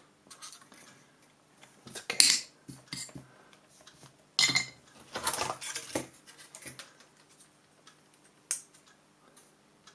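Clattering and clinking of small tools and a circuit board being handled and set down on a desk. It comes as irregular knocks and rattles: the loudest about two seconds in, a cluster between about four and six seconds, and a single sharp click near the end.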